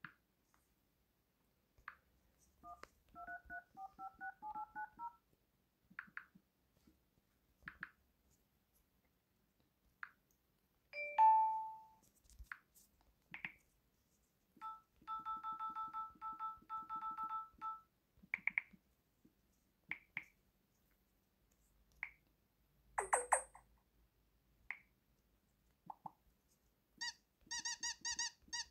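Samsung Galaxy phone system sounds from the 'Galaxy' sound theme: short electronic beeps and blips separated by silence, including a rising run of notes a few seconds in and a steady run of blips in the middle. Near the end comes a quick run of dial-pad key tones as digits are typed into the phone dialer.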